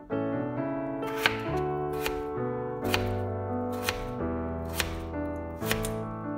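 Kitchen knife slicing through raw peeled potato and knocking on a wooden cutting board, about one cut a second, over steady background piano music.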